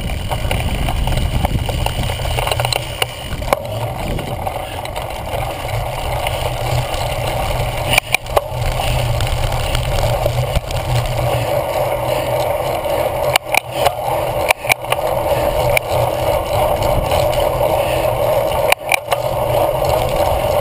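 Cyclocross bike being ridden hard over grass and then pavement, heard from the handlebars: a steady rumble of tyres and wind, broken by a few sharp knocks and rattles over bumps, about eight seconds in, twice around thirteen to fifteen seconds, and near the end.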